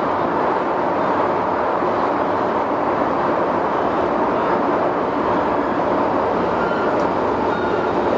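Hong Kong MTR subway train running, heard from inside the passenger carriage: a steady, even running noise of wheels and motors with no breaks, and a few faint high tones near the end.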